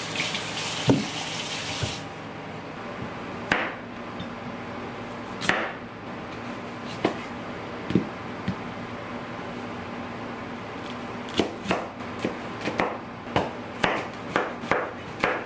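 Kitchen tap running as sweet potatoes are rinsed under it, stopping about two seconds in. Then a knife cutting sweet potatoes on a plastic cutting board: scattered single knocks, turning into a quicker run of chops near the end.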